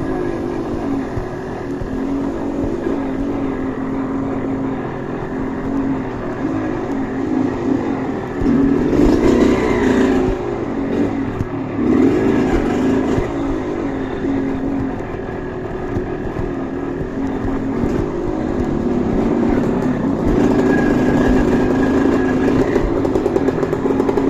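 Trail motorcycle engine running and revving, its pitch rising and falling, with louder bursts of throttle about nine and twelve seconds in.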